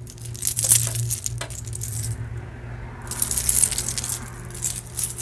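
Costume jewelry being handled: metal chain and beads clinking and jingling in quick clusters of small clicks, with a short lull about two seconds in.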